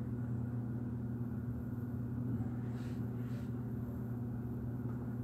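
Steady low hum in the room, with a faint brief rustle about three seconds in.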